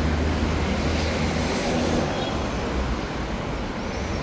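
Steady low rumble of vehicle and road traffic noise, easing slightly about two seconds in.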